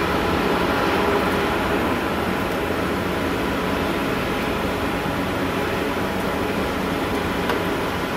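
Unexplained steady droning hum: an even rumbling noise with a few faint held tones in it, with no identifiable source.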